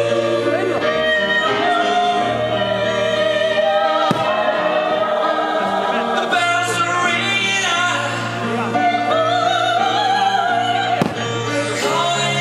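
Operatic music: a solo voice singing with vibrato over a choir and orchestra. Two brief sharp cracks cut through it, about four seconds in and near the end.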